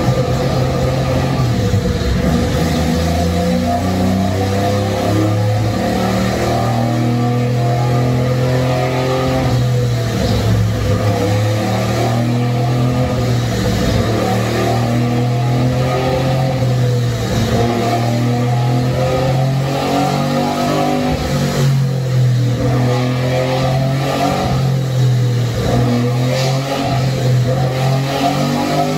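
Mazda RX-7's three-rotor rotary engine running at steady raised revs while being tuned, its pitch drifting only slightly up and down, with no full-throttle sweeps.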